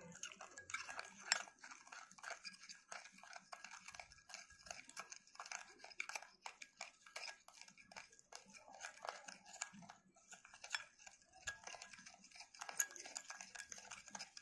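A spoon beating a thick mixture of instant coffee, sugar and water in a glass bowl, whipping it up for dalgona coffee. It makes rapid, irregular faint clicks and scrapes against the glass.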